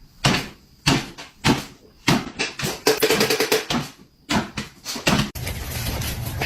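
A quick, uneven series of knocks and thumps, with a brief pitched sound about three seconds in.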